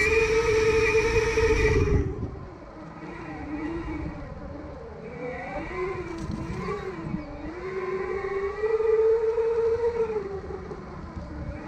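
Twin brushless motors of an electric off-road skateboard whining as it is ridden on its low-speed setting, the pitch rising and falling with speed. Loud at first, the whine drops away about two seconds in, wavers, then climbs back to a steady high whine before easing off near the end.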